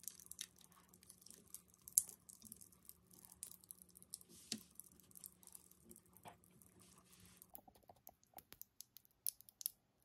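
Thin plastic sealing film being picked at and peeled off a small plastic jelly cup with a toothpick: scattered faint crinkles and sharp little clicks, with a few louder clicks.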